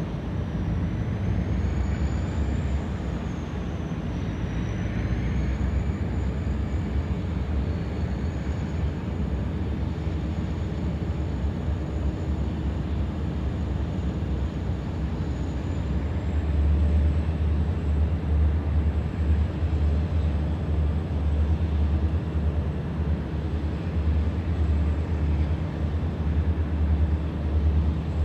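Diesel freight locomotive engine running as the train rolls slowly, a low steady rumble that grows louder about halfway through, with a faint thin high whine above it.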